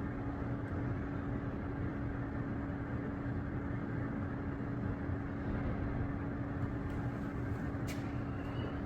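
Steady mechanical hum with a low, constant tone, and a single short click near the end.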